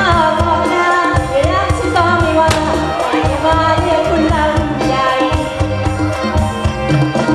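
Live mor lam band playing loud amplified music with a steady bass beat, a voice singing a wavering melody over it.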